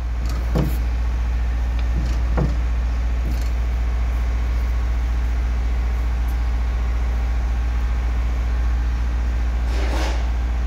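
Bus engine idling steadily, a deep even hum, with a couple of light knocks in the first few seconds and a short rustling noise near the end.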